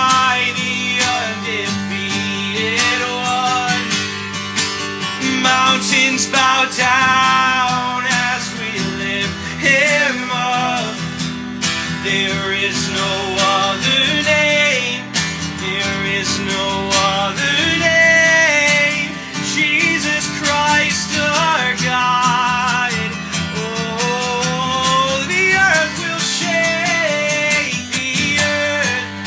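Gibson acoustic guitar strummed steadily under male voices singing a slow worship song melody.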